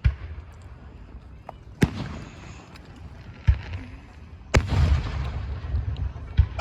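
Aerial fireworks shells bursting: five sharp booms a second or two apart, the one about two-thirds of the way through followed by a couple of seconds of rumbling crackle.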